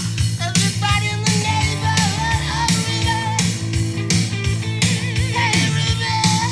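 Rock song with drums, electric guitar and a wavering lead melody line, played loudly over a steady beat through Panasonic SB-550 stereo speakers being tested after repair.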